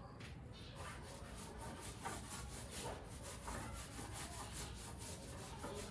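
Faint, irregular scraping strokes of a hand tool across a plywood cabinet panel as putty is worked into and smoothed over the surface.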